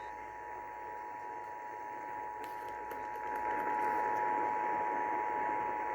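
Emergency Alert System attention signal: the steady two-tone EAS alarm, heard over a hiss of radio static. It marks the start of a statewide EAS test broadcast.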